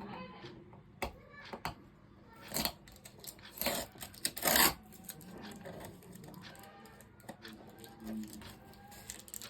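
Packaging handled during unboxing: a few sharp clicks and taps, then three short bursts of rustling or tearing around the middle, the last the loudest.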